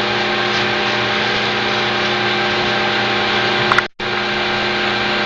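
Steady machine drone: a hiss with a constant hum of several fixed tones. It cuts out for an instant near four seconds, then carries on unchanged.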